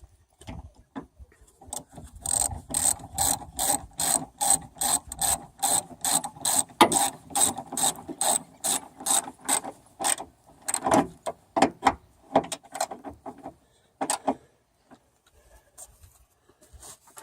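Hand socket ratchet clicking as it tightens spoiler bolts: a long run of even strokes at about two to three clicks a second, then slower, scattered clicks from about ten seconds in.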